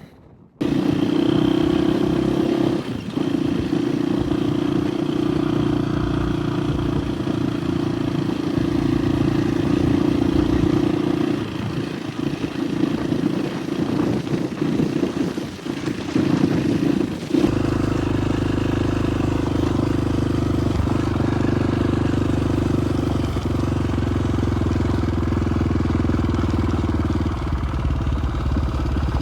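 Dirt bike engine running while riding, starting abruptly about half a second in and holding a steady note with a few brief dips. About two-thirds of the way through, a heavier low rumble joins it.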